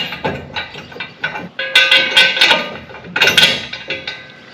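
Steel parts of a motorcycle hitch carrier clanking and ringing as the crossbar is lined up on the hitch bar and the bolt is fitted through the holes. Clusters of sharp metallic knocks come at the start, about two seconds in and again near three and a half seconds, then die away.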